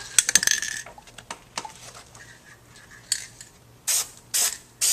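Aerosol spray-paint can: a quick metallic rattle and clicking at the start as the can is handled and shaken, then short hisses of black spray paint sprayed through a paper stencil, in quick bursts about two a second in the last second.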